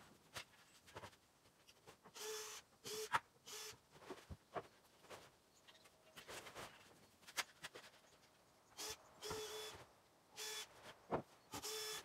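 Plastic sheeting rustling and scraping as it is pulled down off a lumber shed, in repeated short bursts with a few sharp knocks between them.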